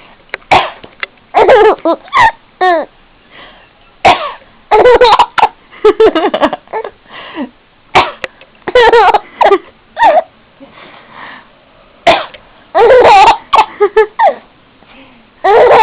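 An adult coughs sharply about four times, every four seconds or so, and after each cough a baby girl breaks into a run of giggles and laughter.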